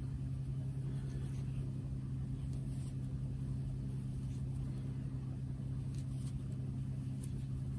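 Steady low machine hum that holds one even pitch throughout, with a few faint ticks.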